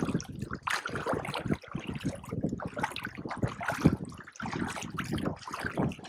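Sea water sloshing and splashing close by in irregular bursts, as someone wades in the shallows.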